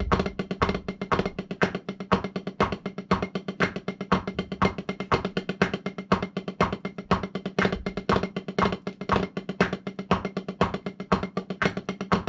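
Wooden drumsticks on a practice pad, playing a fast, even run of paradiddle-family rudiments: single paradiddles, dragadiddles and flam-a-diddles.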